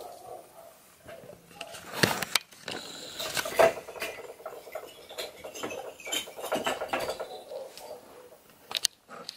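Skinny pigs (hairless guinea pigs) eating from a food bowl: irregular crunching, clicking and rattling of dry food, busiest through the middle.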